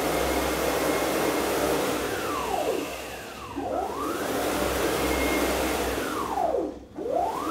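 Aluminium-framed CNC router's gantry traversing on helical racks and pinions at 30 metres per minute. The drive whine rises in pitch as the gantry speeds up, holds, then falls as it slows, over two full runs, with a third starting near the end. Little grinding is left from the rack teeth; the helical racks run smoothly.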